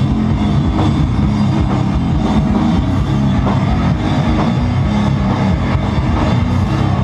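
Sludge metal played live and loud: heavily distorted electric guitar through Marshall amplifier stacks over pounding drum kit.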